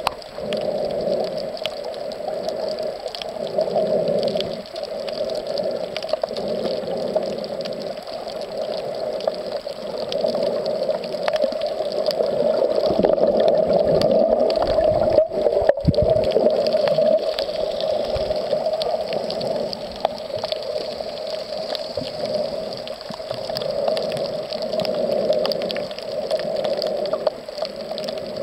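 Underwater ambience picked up by a submerged camera while snorkeling: a steady, muffled rush of water with a constant hum in it and faint scattered clicks and crackles. A brief low rumble comes about halfway through.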